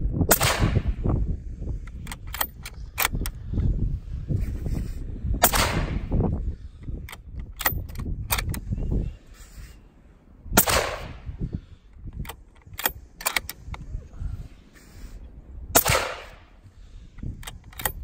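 Suppressed .260 Remington rifle with a 24-inch barrel firing through a Thunder Beast Ultra 7 6.5 mm suppressor: four shots about five seconds apart, each a sharp crack with a trailing echo, with short clicks in between. Each shot measures about 129–130 dB at the shooter's ear.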